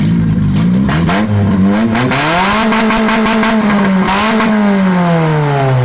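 Car engine revving under load: its pitch climbs over about two and a half seconds, holds, dips briefly near four seconds, then winds steadily down.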